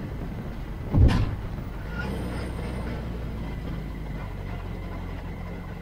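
Formula Ford single-seater's engine running steadily at low revs as the car rolls slowly, with one sudden loud thump about a second in.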